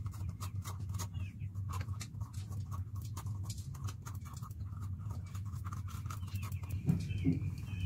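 A knife cutting into crisp green capsicums (bell peppers) to remove the stalks and seed cores, making many short crunchy snicks and clicks against a steel plate, over a steady low hum.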